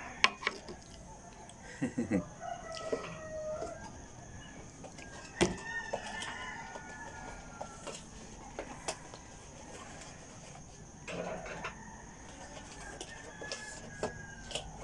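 A rooster crowing at intervals, its long held calls gliding slightly in pitch, with scattered sharp clicks and knocks from a gimbal and phone clamp being handled on the tabletop.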